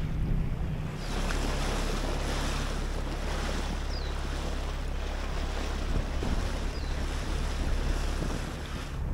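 Inflatable dinghy running over calm water: a steady rush of water and wind on the microphone over a low, even outboard motor hum.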